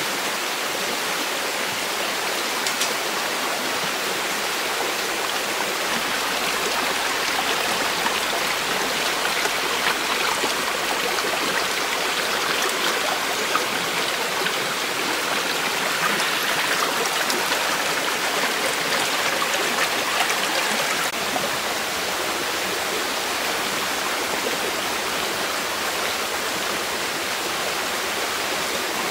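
Shallow, rocky stream rushing and babbling over stones, a steady wash of water that swells a little louder through the middle.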